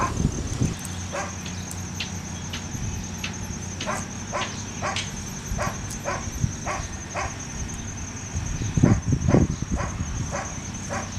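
A dog barking in short repeated yaps, about one or two a second, over a steady high buzz of insects. A few louder low thuds come about nine seconds in.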